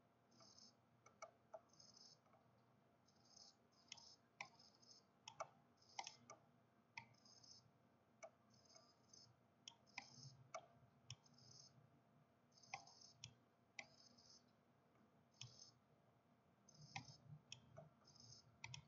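Faint, irregular computer mouse clicks, with short soft scratchy sounds between them.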